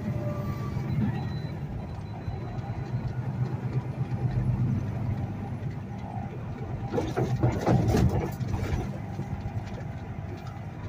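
Semi-truck's diesel engine running steadily with road noise, heard inside the cab, with a louder stretch of knocking and rattling about seven to eight seconds in.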